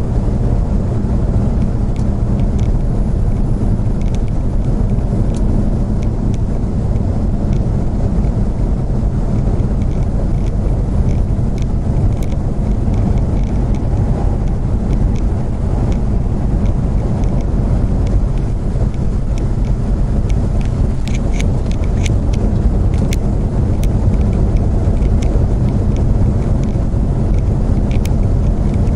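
Steady road and engine noise of a moving vehicle heard from inside the cabin, a low, even drone with a few faint ticks.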